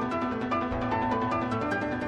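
Background instrumental music, a melody of short plucked-sounding notes over a steady accompaniment.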